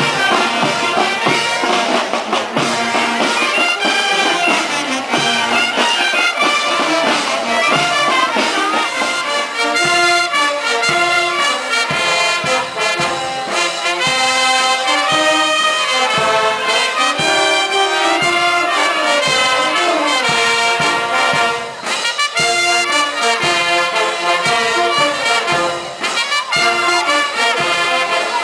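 Brass band playing.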